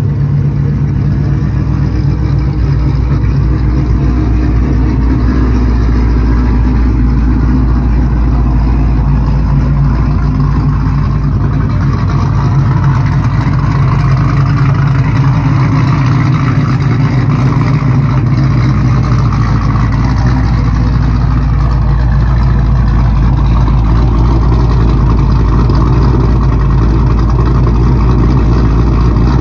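2014 Dodge Challenger's cammed 5.7-litre Hemi V8 idling steadily, heard close to its exhaust tips near the end.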